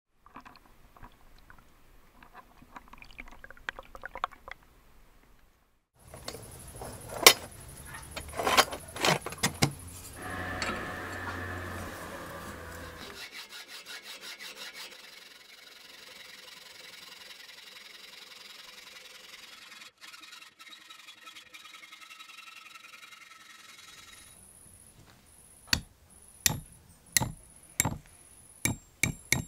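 Sharp metal knocks and clinks, then a hacksaw rasping through a metal tube clamped in a vise. Near the end, a hammer strikes a cut piece of the tube laid on a steel axe head, about seven sharp taps.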